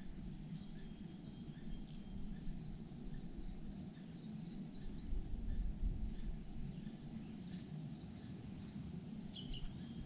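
Outdoor ambience of faint distant birds chirping in a few short high twittering phrases, over a steady low background rumble.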